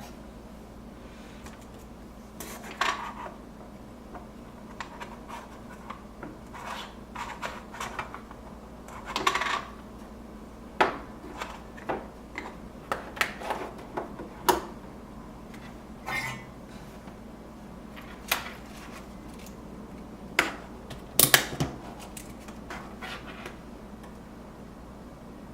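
Irregular clicks, taps and short scrapes of small metal tools and parts being handled on a workbench, the loudest clusters about 9 and 21 seconds in, over a faint steady hum.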